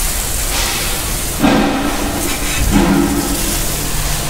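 Garden hose spray nozzle jetting water onto a car's alloy wheel, tyre and wheel well, a steady hiss of spray rinsing off the soap. A low hum comes in about a second and a half in and fades before the end.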